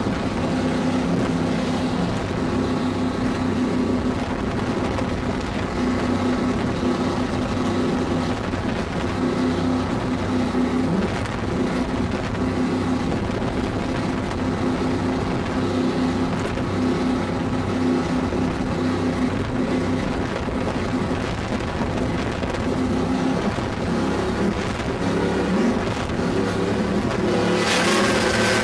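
Cigarette Tiger offshore powerboat's engines running steadily at high speed, a constant drone over wind and water rush. Near the end a strong hiss of spray and wind comes in as the rooster tail churns behind the boat.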